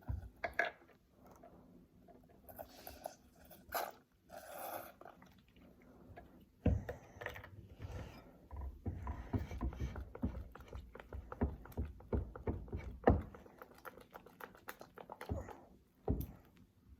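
Slime mixture being stirred and handled in a container: irregular taps and clicks of the utensil with wet squelching. The glue mixture has not set and is still runny.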